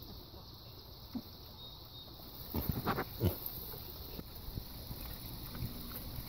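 Juliana mini pigs feeding on hanging lettuce, grunting and chewing, with a short cluster of louder grunts and crunches about three seconds in.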